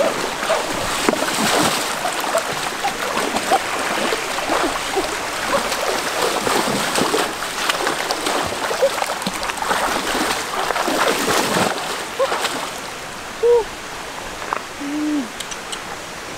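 Hands splashing and churning shallow stream water while grabbing for fish, over the running stream. The splashing stops about twelve seconds in, leaving the stream running and two short hoot-like calls near the end.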